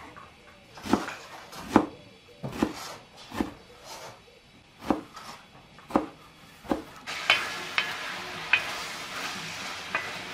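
A large kitchen knife chopping dill on a wooden cutting board, one chop roughly every second. About seven seconds in, cubes of meat sizzle in oil in a saj pan, with a wooden spoon stirring and clicking against the pan.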